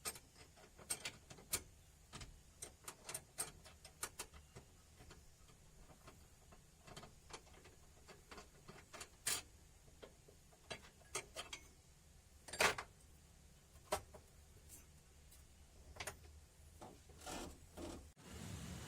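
Irregular light metallic clicks and clinks of tools and parts being handled during a steering gearbox repair, with one sharper knock about two-thirds of the way through.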